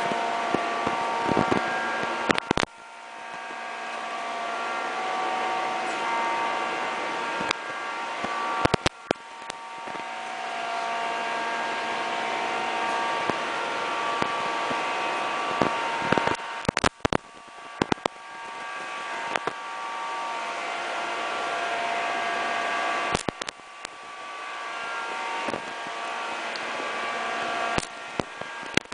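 Suzuki Burgman 125 scooter's single-cylinder engine running through an aftermarket Roncar SS exhaust, with a steady tone. Several times the sound builds over a few seconds, then drops off suddenly with a few clicks.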